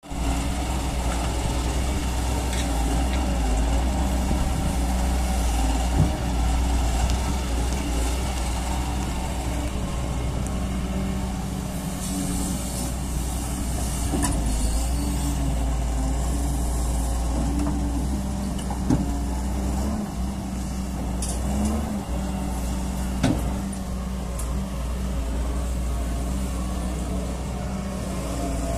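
Doosan DX140W wheeled excavator's diesel engine running steadily under digging load, its note shifting as the arm and bucket work, with a few sharp knocks.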